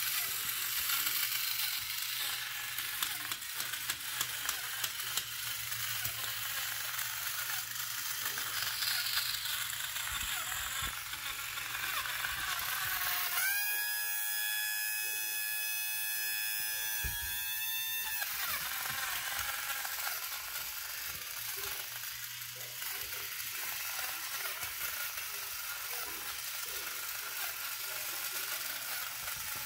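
Elenco Mech 5 mechanical coding robot's small electric motor and plastic gear train whirring and clicking as it runs, with a higher pitched whine that rises in about halfway through and stops some four seconds later.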